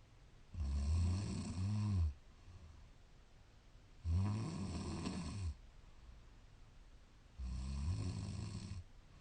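A woman snoring in slow, regular breaths: three loud snores about three and a half seconds apart, each lasting about a second and a half.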